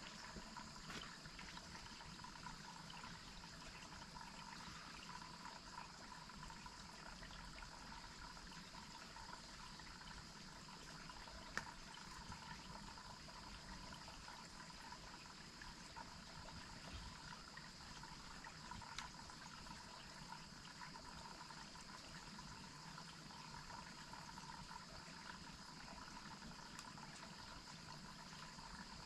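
Faint, steady running water from a waterfall, with a single sharp click about eleven seconds in.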